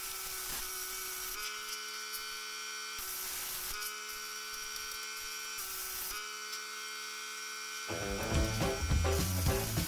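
Plasma cutter cutting aluminium plate: a steady buzzing whine with hiss, switching every second or two between a clean tone and a rougher hiss. Background music comes in about eight seconds in.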